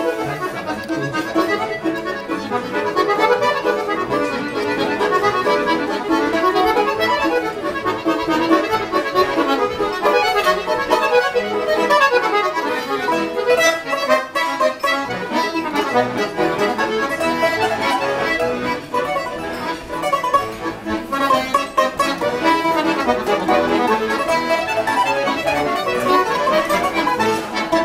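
Two accordions and a plucked string instrument playing a folk tune together, full of quick runs of notes rising and falling.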